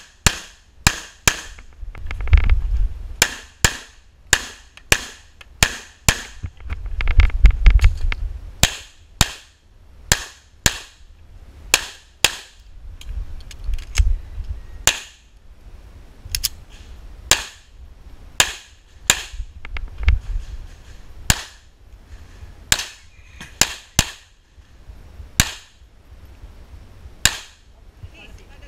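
9mm pistol shots fired in quick strings, mostly in close pairs, dozens of shots in all with short pauses between strings. Short bursts of low rumble on the microphone sit between some of the shots.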